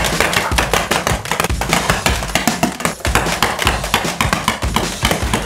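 Background music with a steady beat and sharp percussive taps.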